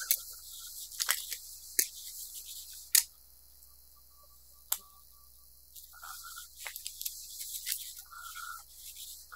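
Scattered sharp clicks and light rustles from a cat pawing at a feathered fishing-rod wand toy, the loudest click about three seconds in. A few short high chirps from birds outside come twice in the second half.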